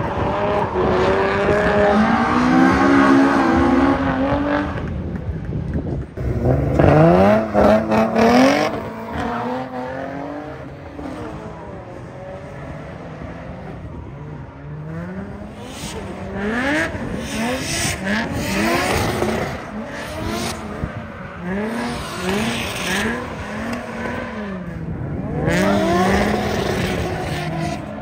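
Drift cars' engines revving hard up and down through a drift run, with tyres squealing. The engine pitch climbs and drops over and over, loud in the first few seconds, quieter for a stretch in the middle, then swinging about once a second through the second half.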